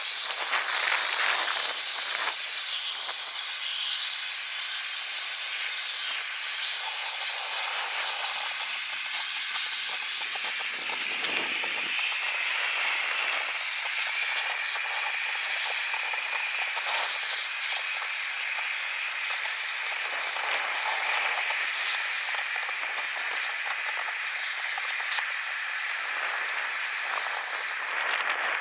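Ground firework fountain burning with a steady hissing spray of sparks, broken by two sharp cracks in the second half.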